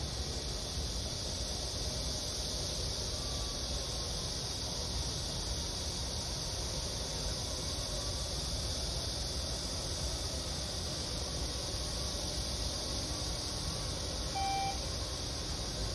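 Steady distant city ambience: a low rumble of traffic under an even, high-pitched hiss, with one short pitched tone near the end.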